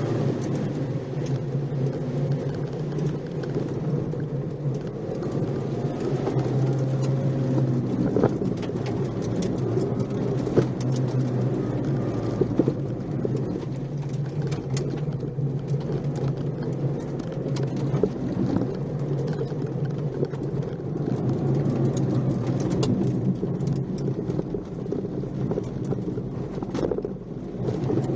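Nissan March 12SR's 1.2-litre four-cylinder engine running steadily under way, its drone mixed with road noise and occasional sharp ticks.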